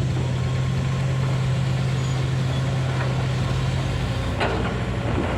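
Komatsu PC200 excavator's diesel engine running steadily, its low note changing about four seconds in, with a couple of brief knocks near the end.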